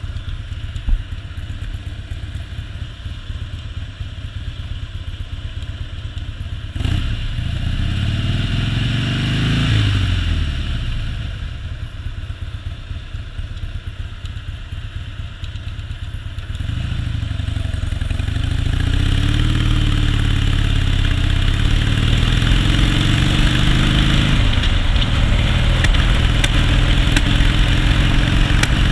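Harley-Davidson Softail V-twin engine running under way. The pitch climbs from about seven seconds in and eases off again by twelve. It pulls louder again from about seventeen seconds, rising and falling in pitch, with a steady hiss of wind over it.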